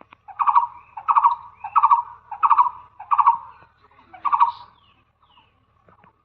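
Blue-eared barbet calling: six short, evenly repeated notes about two-thirds of a second apart, stopping about four and a half seconds in.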